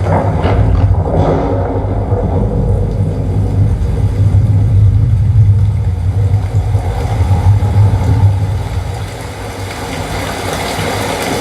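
Trailer soundtrack played back over speakers: a deep, steady, vehicle-like rumble that eases off about nine seconds in.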